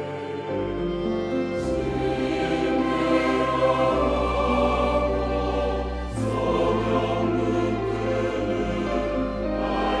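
Mixed church choir singing a hymn anthem in Korean, with organ, piano and strings accompanying under held low bass notes that shift every second or two.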